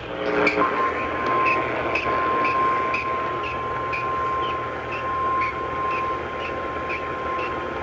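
Emergency Alert System attention tone over an AM radio broadcast: a single steady tone just above 1 kHz comes on about half a second in and holds, over a steady hiss of static with faint ticks about twice a second.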